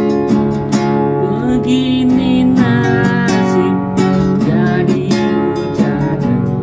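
A nylon-string acoustic guitar, a Cowboy CGC 100 NS, strummed in a steady rhythm of chords, with a man singing along over it.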